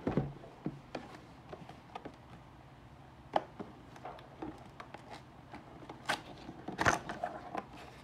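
Cardboard box being handled: a knock as it is turned over and set down, then scattered taps and scrapes, with a louder scraping rustle of cardboard about six to seven seconds in as the lid is opened.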